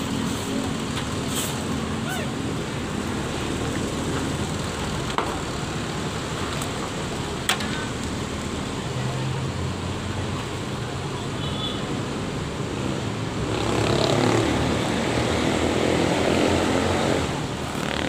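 Mercedes-Benz OH 1626 coach's diesel engine running steadily as the bus moves slowly across a gravel terminal yard. The engine noise grows louder for a few seconds near the end.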